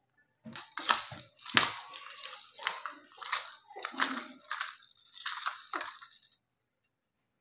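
Plastic baby rattle and toys shaken and knocked together in irregular bursts of rattling, stopping about a second before the end.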